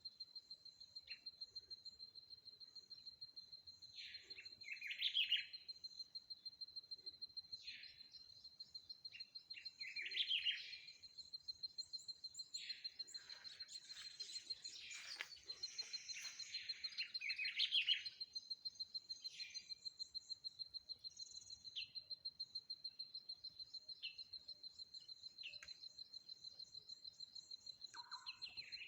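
Several birds calling and chirping, with the loudest bursts of calls about five seconds in, around ten seconds and again from about thirteen to eighteen seconds. Under them a thin high note pulses steadily a few times a second throughout.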